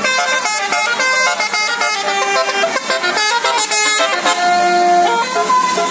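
Bus 'telolet basuri' melodic horn playing a tune: quick runs of short notes, then longer held notes from about four seconds in.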